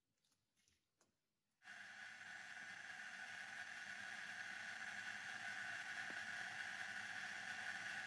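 A few faint clicks as a pan of pizza toasts is handled, then from about a second and a half in, the steady hum of an oven running as the toasts bake inside it.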